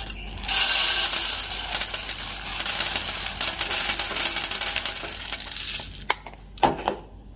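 Raw green coffee beans pouring from a plastic tub into a wire-mesh hand roasting basket: a dense, steady rattle of hard beans that dies away about six seconds in, followed by a few sharp clicks.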